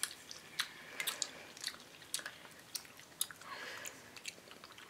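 A person chewing a jelly bean: faint, scattered wet mouth clicks and smacks.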